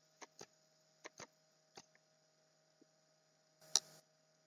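Near silence with a faint steady hum. Five soft clicks come in the first two seconds, and a sharper click follows near the end.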